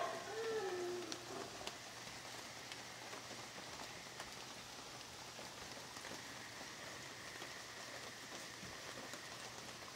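A black howler monkey's howl trails off in the first second, ending on a low note that falls in pitch. It gives way to a steady hiss of light rain with a few faint drips.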